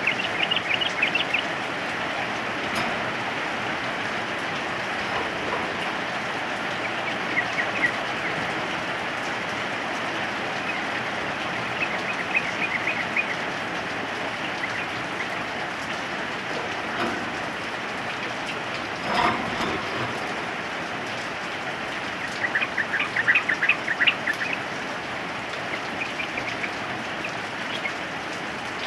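Steady rain falling, with a yellow-vented bulbul (trucukan) calling in short chattering bursts several times over it.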